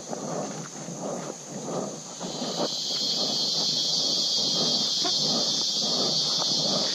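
Footsteps on a dirt forest trail, about two a second, under a steady high-pitched insect drone that swells up about two seconds in and becomes the loudest sound.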